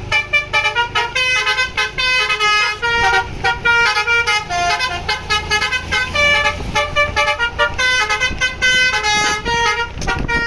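Bus 'telolet' multi-tone horn, a Basuri V3, playing a fast melody of short stepped notes without pause, with the bus engine running low beneath.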